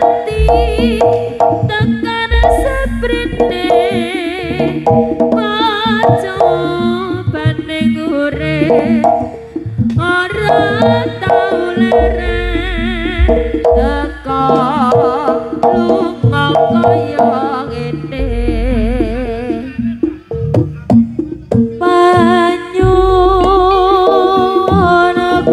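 Live East Javanese jaranan gamelan music: kendang hand drums and gongs under a wavering high melody line.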